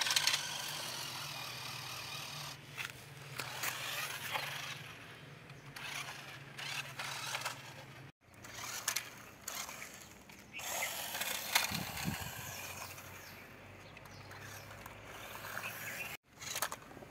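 Small electric motor of a toy RC off-road car running with a steady low whine while its tyres scrape and crunch over gritty dirt, rising and falling as it drives. The sound cuts off abruptly about eight seconds in and again near the end.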